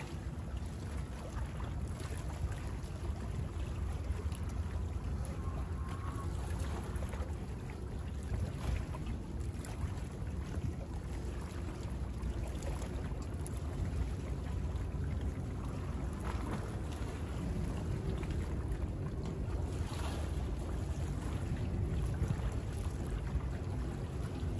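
Small bay waves lapping and splashing against the shore, over a steady low rumble that rises and falls.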